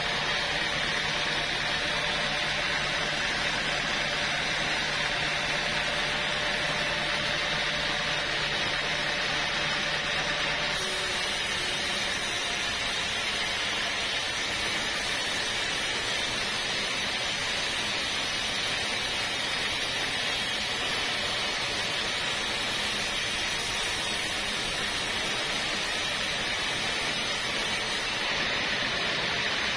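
Band sawmill running steadily, its blade cutting lengthwise through a block of teak. A higher hiss joins about a third of the way in and stops shortly before the end.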